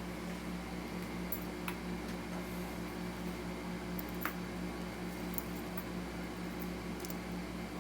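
Steady hum of a fan or air conditioner running, with a couple of faint clicks about two and four seconds in.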